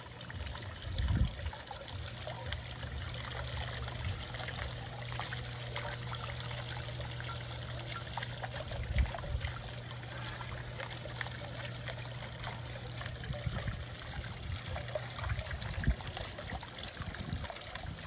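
Water trickling and splashing over a two-piece stamped cement rock fountain. A low steady hum runs underneath and stops near the end, and a couple of brief low thumps come through.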